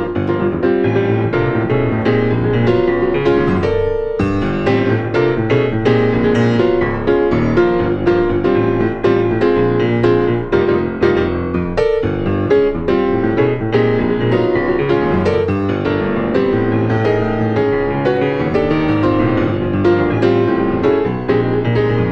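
C. Bechstein grand piano being played, a steady flow of chords and quick notes, with two brief breaks about four and twelve seconds in.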